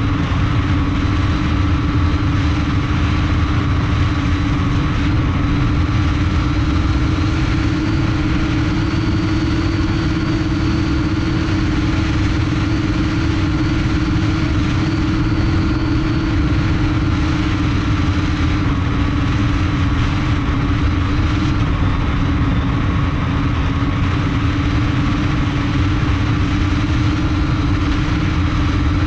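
Multirotor drone's brushless motors and propellers humming steadily in flight, heard close up from a camera on the frame. The pitch of the hum rises slightly about eight seconds in and settles back down around sixteen seconds, over a low rumble.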